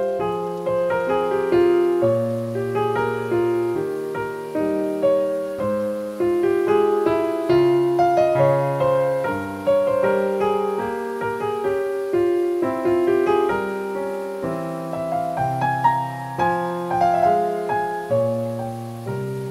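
Piano music: a melody over held chords, each note fading after it is struck.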